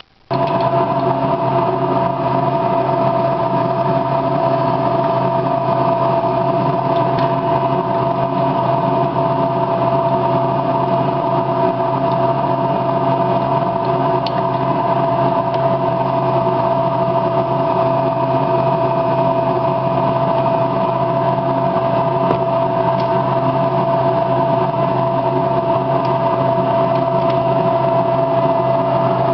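A steady motor hum with a constant whine over an even rushing noise, coming on abruptly and running unchanged.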